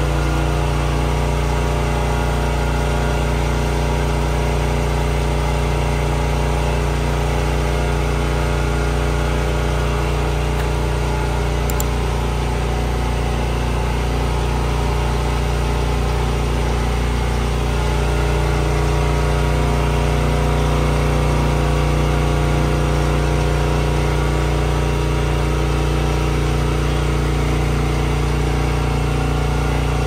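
Small engine of a ride-on calf-feeding cart running steadily at low revs, with an even hum that barely changes, a little louder about two-thirds of the way through.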